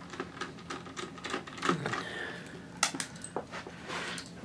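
Small screws being undone from a laptop's hard drive and handled: a run of light clicks and taps of a screwdriver and small metal parts, with a sharper click a little under three seconds in.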